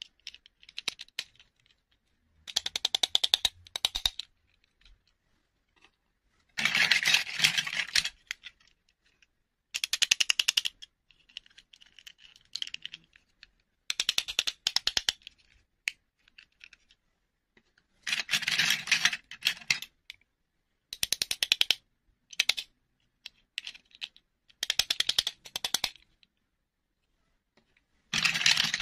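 Short bursts of rapid clicking and rattling from small plastic doll figures and their clip-on dresses being handled over a plastic bowl, recurring every few seconds with quiet gaps between.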